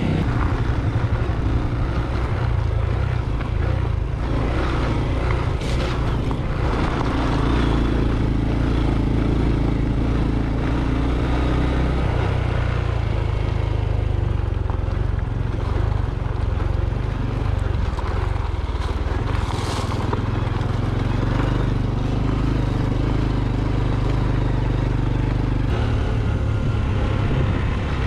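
Honda Trail 125's single-cylinder four-stroke engine running steadily under way, its note changing about twelve seconds in and again near the end.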